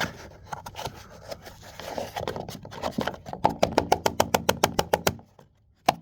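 Scraping and rubbing on a dryer vent, then a fast, even run of sharp clicks, about eight a second, that stops suddenly about five seconds in, with one last click near the end.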